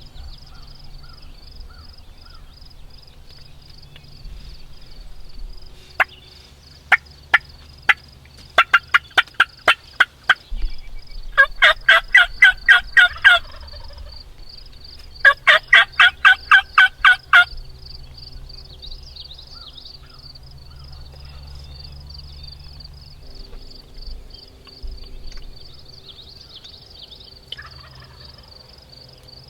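A wild turkey tom gobbles twice, each gobble a rapid rattling run of about two seconds, the first about eleven seconds in and the second about fifteen seconds in. Before the gobbles, from about six seconds in, there is a quick run of sharp clicks and short calls.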